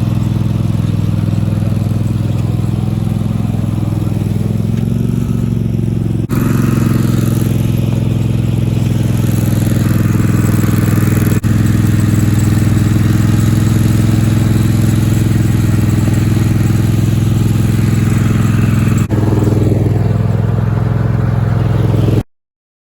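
Straight-piped twin-cylinder engine of a Craftsman riding mower running loud and steady, its pitch shifting a little a few seconds in. The sound breaks briefly three times and stops abruptly near the end.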